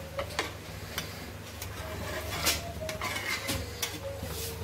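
A long metal spatula stirring thick curry in a kadhai, with scattered light clinks and scrapes of metal against the pan over a steady low hum.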